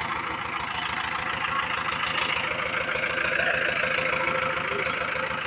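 Mahindra 585 tractor's diesel engine idling steadily, its firing pulses beating evenly.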